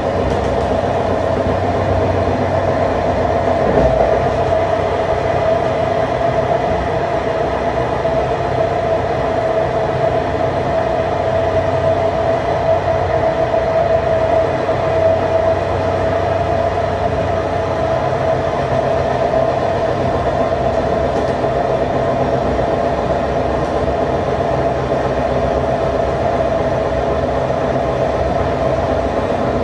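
TCDD DE 24000 diesel-electric locomotive running steadily as the train moves, a constant drone with a strong mid-pitched tone, heard together with the running noise of the train.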